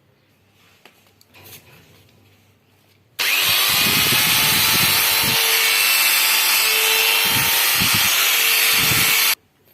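Bosch GWS 600 670-watt angle grinder switched on and running free at full speed with a steady high whine. It starts abruptly about three seconds in and cuts off about six seconds later.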